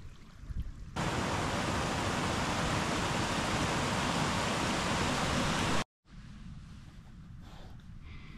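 A small hill stream rushing down a rocky gully: a steady hiss of running water that starts abruptly about a second in and cuts off sharply just before six seconds. A much quieter low rumble follows.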